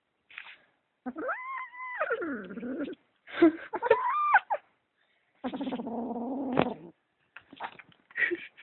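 Kitten making a possessive growling yowl while guarding a sock: two drawn-out calls that rise, hold and fall, then a lower steady growl, then a few short grumbles near the end.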